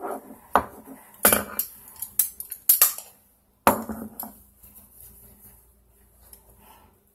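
Metal hand tools clinking and knocking as pliers are handled and set on a toilet's chrome shut-off valve: a string of sharp clinks in the first few seconds, then quieter fumbling.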